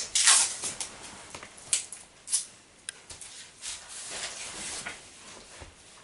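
Sticky tape being pulled off its roll and torn in a few short rips, the loudest right at the start, then paper rustling as the tape is pressed down to hold the sheet.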